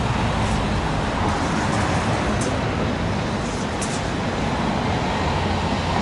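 Steady noise of road traffic, cars passing on the street.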